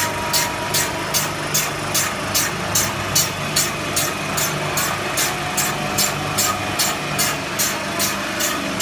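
Lightweight-brick cutting machine running: a steady motor hum under a regular hissing stroke repeating about three times a second.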